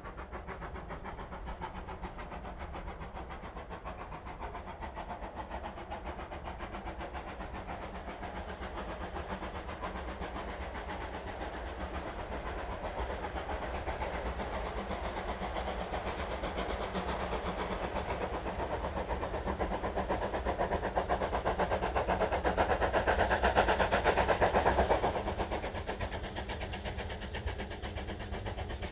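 Steam locomotive working a train up the line. Its exhaust grows steadily louder as it approaches, peaks a few seconds before the end, then drops back suddenly.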